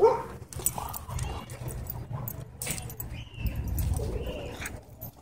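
Dog vocalizing: a sharp yelp at the start, then short whining, cooing calls over a low rumble.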